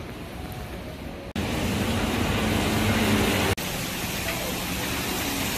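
Traffic on a rain-wet street: a steady hiss of tyres and engines with a low engine hum. It changes abruptly twice as the recording cuts between scenes, and is loudest in the middle stretch.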